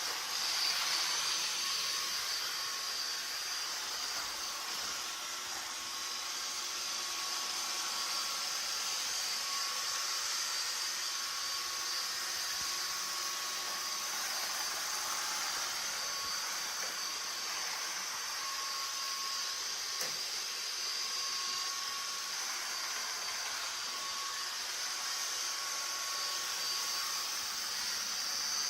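Roborock S50 robot vacuum cleaner running, a steady high-pitched whir of its suction fan with a faint whine that comes and goes.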